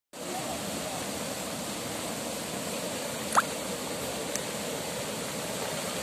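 Shallow stream rushing steadily across a road causeway, splashing around the legs of people wading through it. About three and a half seconds in, a short sharp rising squeal cuts through, the loudest moment.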